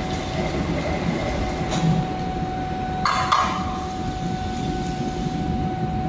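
Steady foundry rumble with a constant hum, and about three seconds in a ringing metallic clink of a steel skimming rod against an iron ingot mould.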